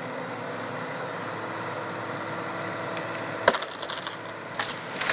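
Excavator engine running steadily, then about three and a half seconds in a sharp crack of the tree's wood splitting, followed by crackling and a louder burst of splintering near the end as the digger pushes the tree over.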